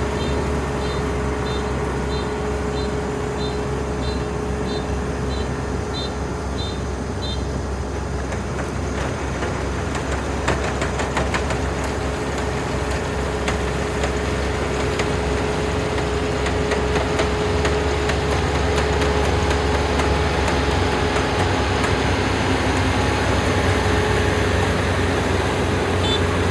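Dynamax 470 combine harvester running steadily under load with a constant hum while it cuts rice. A high beep repeats about twice a second for the first seven seconds or so, and later a fast light ticking joins the machine noise.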